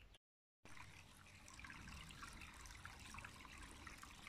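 Faint trickling of a shallow woodland brook running over stones and leaves, starting after a brief moment of dead silence.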